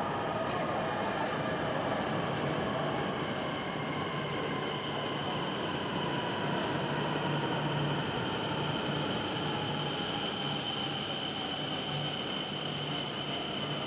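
Shinkansen bullet train, a red E6 series set coupled to a green E5, pulling into the platform at low speed and growing louder as it runs past, with a steady high whine over the running noise.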